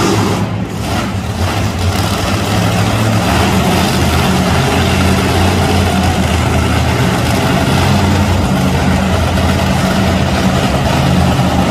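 Monster truck engine running loud and hard as the truck drives across the dirt arena, its pitch stepping up and down as the throttle changes.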